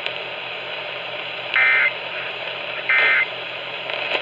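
Emergency Alert System end-of-message data bursts over a radio broadcast. Two short, buzzy digital bursts come about 1.3 seconds apart, and a third starts at the very end, over steady radio hiss. They mark the end of the flood warning.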